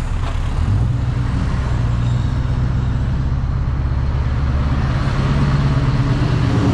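Scania V8 diesel truck engine running steadily while pulling a loaded low-loader trailer, heard from inside the cab. Its low, even drone firms up about a second in, with road noise underneath.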